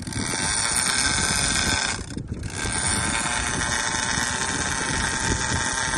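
Conventional fishing reel in free spool, the spool spinning with a steady whirring run as line pays out and the bait sinks. It starts suddenly and breaks off briefly about two seconds in.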